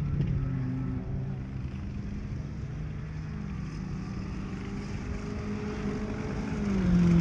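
Multirotor drone's propellers humming steadily, with several tones that shift in pitch a few times as the motors adjust speed, louder with a drop in pitch near the end.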